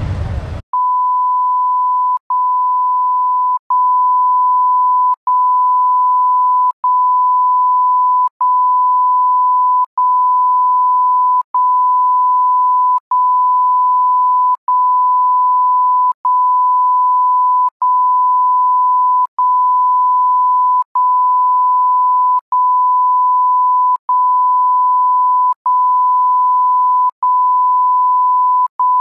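Traffic noise cuts off just after the start and a steady electronic beep tone takes over, one unchanging pitch, broken by a brief gap about every one and a half seconds.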